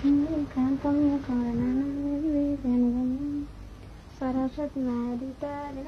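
A person humming a slow tune in long held notes, with a short pause a little past halfway before the humming starts again.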